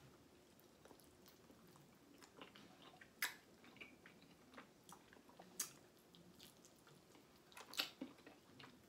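A person chewing a chicken wing dipped in blue cheese: faint chewing with a few sharper mouth clicks, one about three seconds in, another past five seconds, and a pair near the end.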